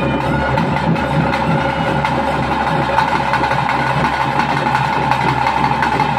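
Loud traditional ritual music of a Bhuta Kola: a steady droning held note with fast, dense drumming running under it.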